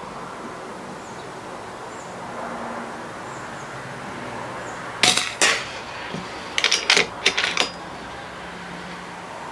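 A .22 FX Crown air rifle fitted with a Donny FL Tatsu moderator fires once, a short muffled crack, and about half a second later the pellet knocks into the wooden target board. About a second later comes a quick run of five or six sharp metallic clicks.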